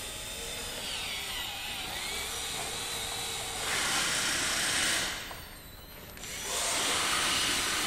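Electric screwdriver driving the two screws back into a scooter headlight housing. The motor's pitch slides up and down at first, then it runs louder twice, with a short lull between.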